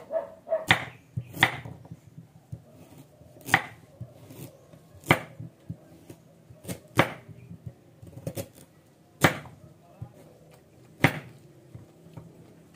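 Kitchen knife cutting carrots into chunks on a wooden cutting board: single sharp knocks of the blade hitting the board, slow and irregular, a second or two apart.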